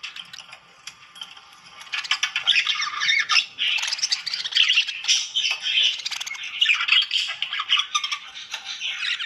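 Budgerigars chattering and warbling: fast, scratchy squawks and chirps, softer for the first couple of seconds, then dense and near-continuous.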